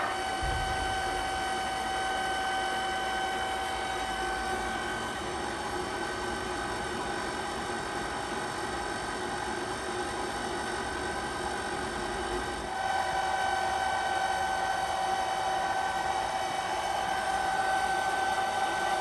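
TOS FNGJ 32 universal milling machine running, its gear drive giving a steady whine; about 13 seconds in the whine gets stronger and the machine a little louder.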